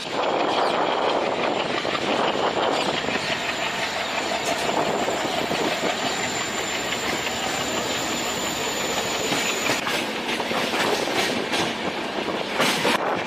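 Passenger train of LHB coaches running on the rails, heard from an open coach doorway, with the wheels' running noise mixed with rushing air. A thin, high-pitched whine holds steady for the first ten seconds or so, and there is a brief louder rush near the end.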